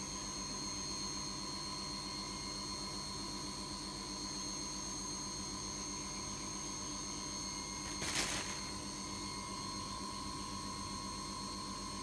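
A steady hum and hiss with several constant high-pitched tones running under it. A short burst of noise comes about eight seconds in.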